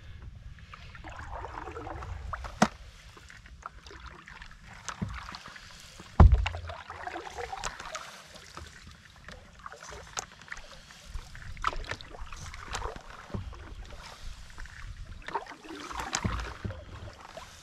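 Single-blade wooden paddle strokes in an open folding canoe: the blade swishing and dripping through the water, with water lapping at the hull and a few light clicks. A loud knock about six seconds in is the loudest sound.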